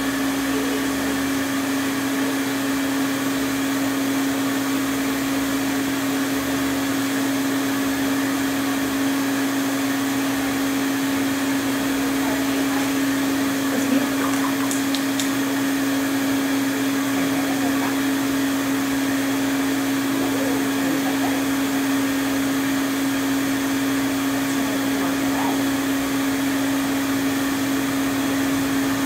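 Steady electric motor hum: one constant mid-pitched tone over a haze of noise, unchanging throughout, with a small click about 14 seconds in.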